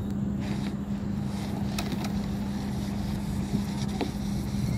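A steady low hum over a rumble, with a few faint clicks.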